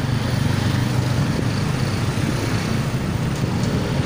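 Steady low hum of motor traffic and road noise heard from a bicycle riding along a busy town street.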